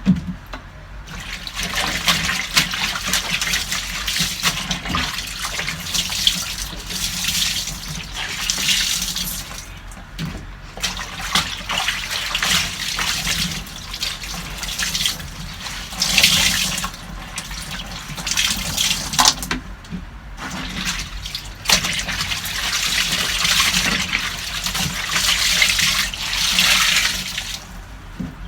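Water running and splashing in uneven surges that swell and fade every few seconds, with a few sharp knocks.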